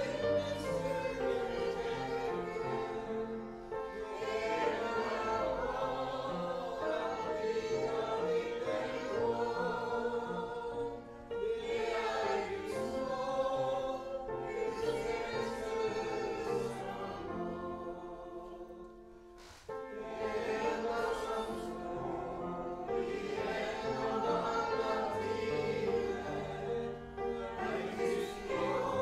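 Congregation singing a hymn in slow, held phrases, accompanied by an upright piano. The singing fades briefly about two-thirds of the way through between lines, then starts again.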